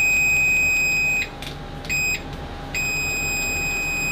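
ANENG DM830L multimeter's continuity beeper sounding a steady high-pitched tone as the test probes close the circuit, measured at about 73 dBA. The beep cuts off about a second in, sounds again briefly around two seconds, then comes back near three seconds and holds.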